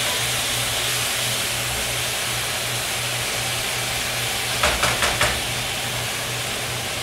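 Sliced potatoes sizzling steadily in a hot skillet, with a few quick clicks of a utensil against the pan about four and a half seconds in.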